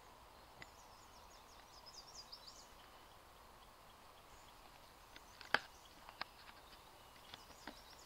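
Faint scratching of a small dog digging in forest soil with its paws, with several sharp clicks in the second half. A bird twitters high about a second in.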